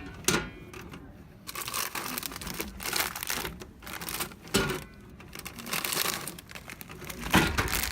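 Crinkling and rustling, as of plastic or fabric being handled, with sharp knocks about half a second in, around four and a half seconds in and near the end.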